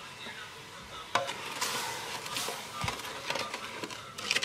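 Wooden spatula stirring and scraping sugar into water in a thin aluminium pot on a gas burner, making sugar syrup. There is a sharp knock about a second in, then scratchy scraping and clicks.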